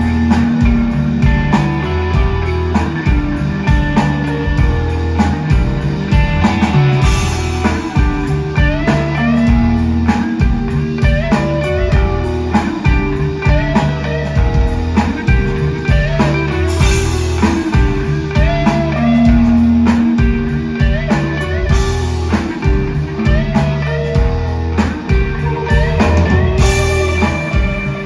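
Live rock band playing an instrumental passage: electric guitars repeating a riff over bass and a steady drum beat, with cymbal crashes every few seconds.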